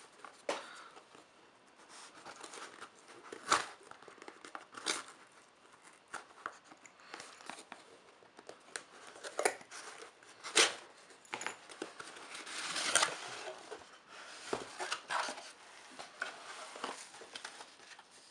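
A cardboard parcel being opened by hand: the packaging is torn and crinkled in irregular rips and rustles, with a few sharp loud rips and a longer tearing stretch about two-thirds of the way through.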